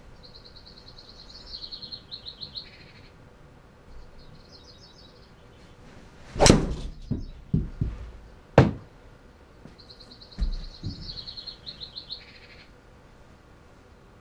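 A driver strikes a Kirkland golf ball off a tee and the ball smacks into the golf simulator's impact screen about six seconds in, followed by a second sharp knock about two seconds later. A rapid chirping trill sounds near the start and again near the end.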